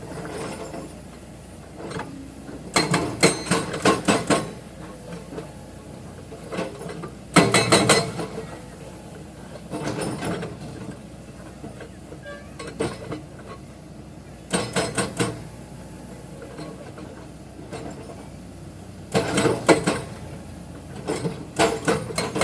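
Excavator-mounted hydraulic breaker hammering limestone rock in repeated short bursts of rapid blows, over a steady low engine hum.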